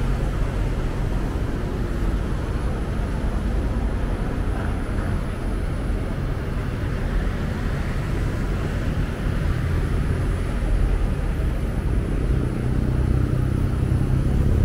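Busy street traffic at a junction: buses and taxis running and passing close by, a steady low rumble with no let-up.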